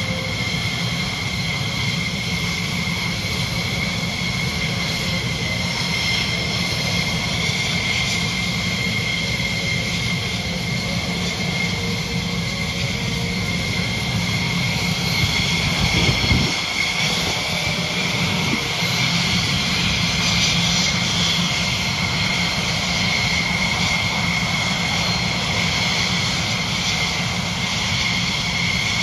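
US Air Force Thunderbirds F-16 Fighting Falcon jets flying overhead: a continuous jet-engine rumble with a steady high whine, briefly louder about halfway through.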